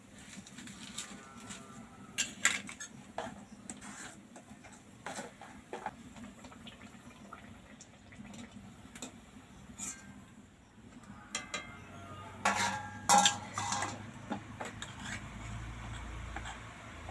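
Metal cooking utensils clinking and scraping against a steel wok and steel plates as frying pitha are turned and lifted out of the oil, in scattered clinks with a louder cluster about twelve to fourteen seconds in.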